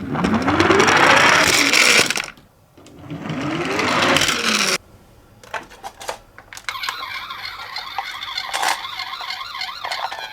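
Toy ambulance minicars rolling fast, twice, each run a loud rush of wheel noise with a rising whir. About seven seconds in, their toy sirens start up, several high wailing tones wavering in pitch.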